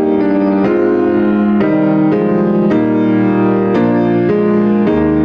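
Piano playing slow, full chords, a new chord struck about once a second.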